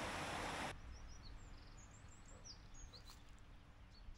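Rushing water of a shallow river, cut off abruptly under a second in; then a faint outdoor hush with small birds giving several short, high chirps.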